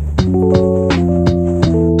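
Background music: held keyboard notes and chords over a steady beat of about three hits a second.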